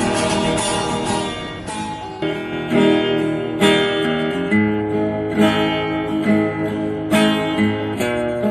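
Acoustic guitar strummed in chords with no singing, an instrumental passage between sung verses; from about two seconds in the strums fall in an even rhythm, roughly one a second.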